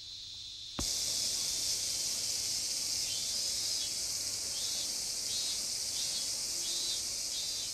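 A chorus of cicadas buzzing, high and steady, starting suddenly about a second in.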